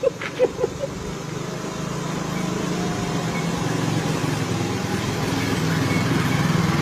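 Motorcycle engine running with a steady low hum that grows gradually louder as the bike draws near.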